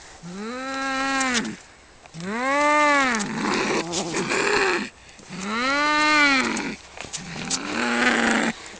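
Two male cats yowling at each other in a territorial fight: long drawn-out caterwauls, each rising and then falling in pitch, three in a row, then a lower, rougher call near the end.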